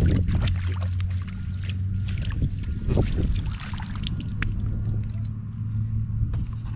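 A steady low engine hum, with splashing and dripping as catfish are shaken out of a mosquito net into a plastic bucket in shallow water, and a few sharp knocks, the clearest near the start and about three seconds in.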